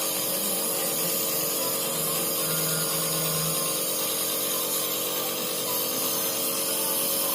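Compressor nebulizer running with a steady, even mechanical buzz.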